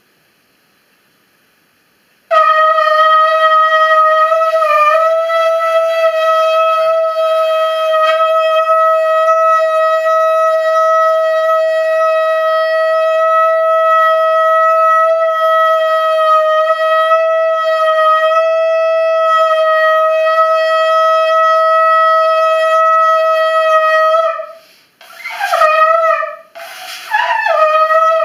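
Shofar being blown: after about two seconds of quiet, one long steady note held for some twenty seconds, then a few short blasts that swoop up in pitch as each begins.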